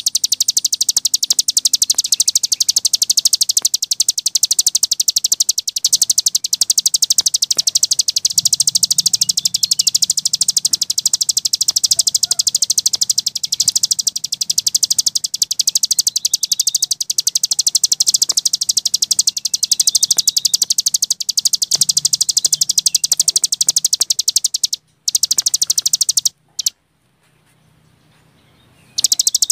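Cici gunung songbird singing a continuous, very fast, high-pitched trill in the rapid 'ngebren' style used for masteran recordings. It breaks off twice near the end, the second time for a couple of seconds before resuming.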